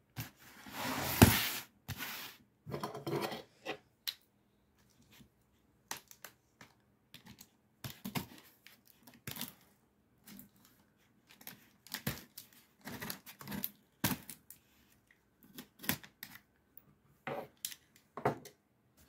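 Cardboard shipping box being handled and its packing tape cut and pulled: a string of short scrapes and rips, the longest and loudest about a second in.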